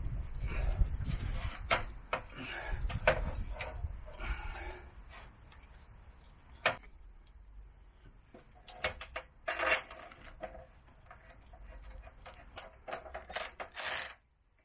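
Clicks, knocks and clatter of metal parts and hand tools being handled while refitting a motorcycle exhaust. Near the end come two short bursts from a cordless ratchet driving a bolt, and the sound cuts off sharply.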